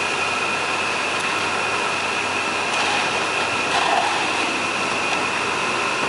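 ZSF30 concrete reclaimer running steadily: an even mechanical noise with a constant high-pitched whine over it, and a couple of faint clicks about halfway through.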